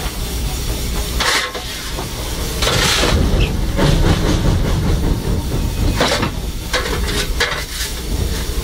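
Steam locomotive running, heard on the footplate by the open firebox. A steady low rumble carries repeated bursts of hiss, spaced more than a second apart at first and coming faster, about every half-second to second, in the second half.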